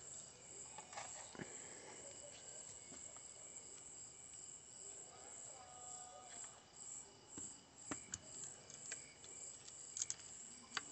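Crickets chirping faintly in a steady high-pitched pulse, several chirps a second. A few sharp clicks and taps break in, twice near the end, from handling wires and terminals.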